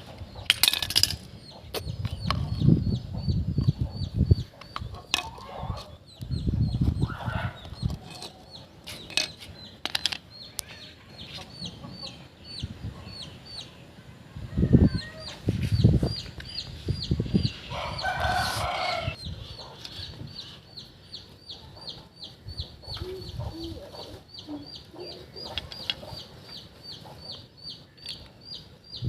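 Birds calling, with a short high chirp repeating about twice a second and a louder call a little past the middle, over scattered low thumps.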